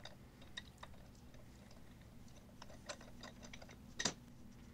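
Faint, scattered metal clicks and taps as the threaded end cap of a hydraulic loader lift cylinder is unscrewed with a pipe wrench and by hand, with one sharper click about four seconds in.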